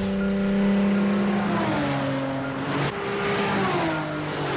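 Sports car engine, the Fairlady Z's straight-six, running hard at high revs. Its note holds steady, then falls, jumps back up about three seconds in and falls again.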